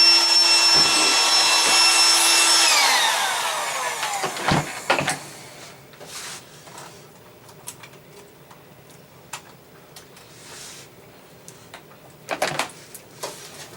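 Electric motor running at a steady high whine, then switched off and winding down in pitch over about two seconds, followed by scattered clicks and knocks of handling.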